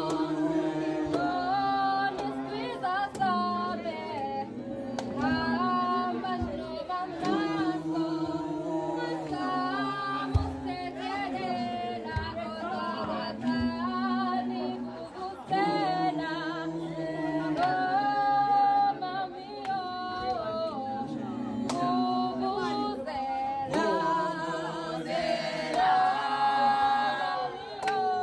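A song sung by several voices together in harmony, choir-like, with the melody moving continuously.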